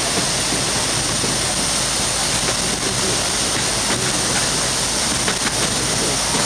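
Steady rolling noise of a narrow-gauge forest railway train heard from on board, wheels running on the rails, with a few light clicks.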